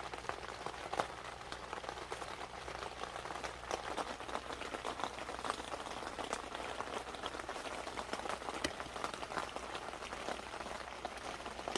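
Steady rain falling, an even hiss with many separate drops striking close by at irregular moments.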